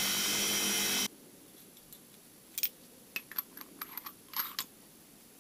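Belt grinder running with a brass pipe adapter held to its belt, grinding down the adapter's end face; the grinding cuts off suddenly about a second in. After that come a handful of light clicks as brass fittings are handled and screwed together.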